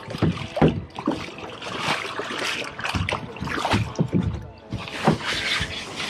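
Kayak being paddled through water: irregular splashes and sloshing from the paddle strokes.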